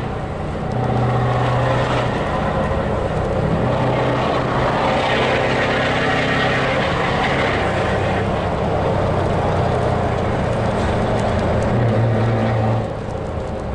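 Scania V8 truck engine running while driving, heard from inside the cab as a loud, steady rumble whose pitch shifts up and down several times. The level eases off slightly near the end.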